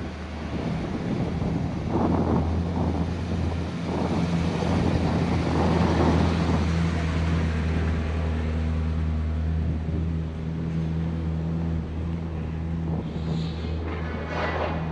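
Wind buffeting the microphone over a steady low hum, with louder gusts about two seconds in, around six seconds and near the end.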